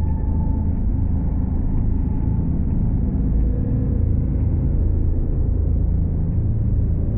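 Designed spaceship sound effect: a steady, deep engine rumble with faint hovering tones above it, one of them fading out within the first second.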